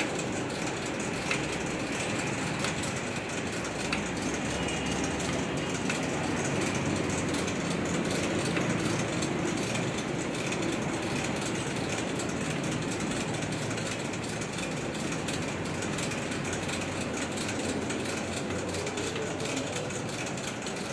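Steady machine noise of factory machinery running, with a few faint ticks.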